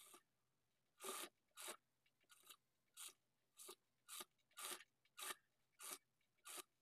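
Fabric scissors snipping through cloth, a dozen or so short faint snips at about two a second, trimming the end of the blouse's neck-binding strip.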